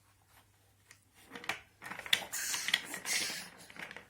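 Light clicks and rustling from toy trains being handled, starting about two seconds in after a near-silent stretch.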